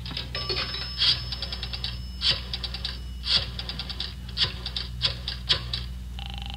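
Radio-drama sound effect of a rotary telephone being dialled: about five digits, each a sharp click followed by a quick run of dial-return clicks. Near the end a pulsing ringing tone starts on the line.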